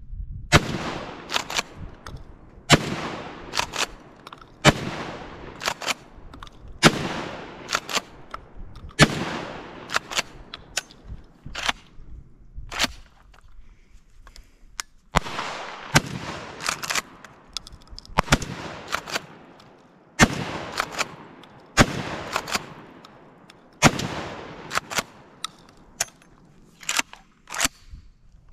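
Benelli SuperNova Tactical 12-gauge pump-action shotgun firing a string of shots, about one every two seconds, each followed by an echoing tail and sharp mechanical clacks as the pump is worked between shots.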